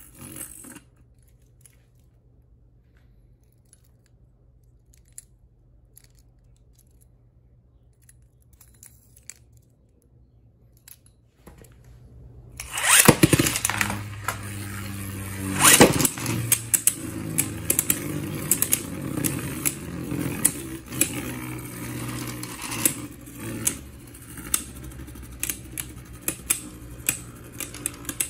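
Beyblade Burst spinning tops whirring and rattling on a plastic stadium floor, starting loudly about twelve seconds in with many sharp clicks and a low hum that drops in pitch; before that only a few faint handling ticks.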